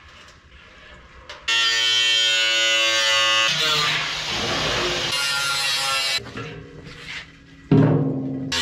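A handheld electric power tool runs up to a steady whine about a second and a half in, then bites into the steel drum with a rougher grinding noise for a few seconds. Near the end the empty steel barrel is set down on concrete with a sudden ringing boom.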